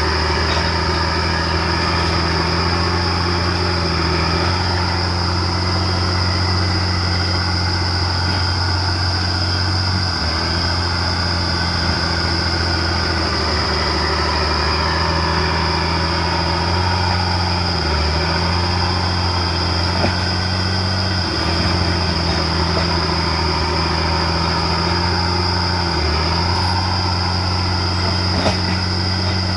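Komatsu D50A crawler dozer's diesel engine running steadily while pushing material, its pitch dipping briefly a few times under load. A steady high-pitched whine runs over it.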